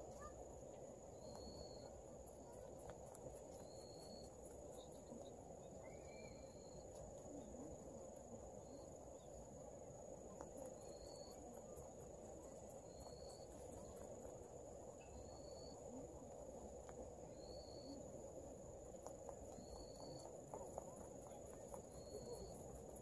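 Faint chirping of insects in the grass: a steady high buzz with a short chirp about every two seconds.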